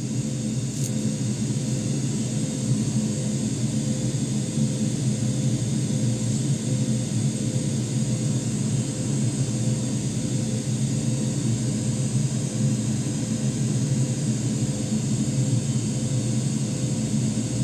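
Steady, even low rumbling noise with a thinner hiss above it and a faint steady hum, unchanging in level.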